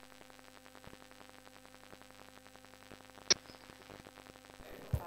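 Near silence: faint steady room hum, with one short sharp click about three seconds in.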